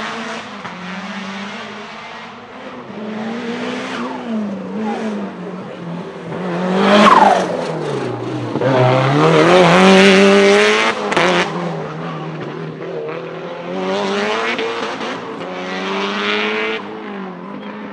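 Tuned 500 hp Lancia Delta HF Integrale Evo 2 turbocharged four-cylinder racing, revs rising and falling repeatedly as it accelerates and lifts between corners. The pitch drops sharply about eight seconds in and then climbs back hard, with the loudest running around that point.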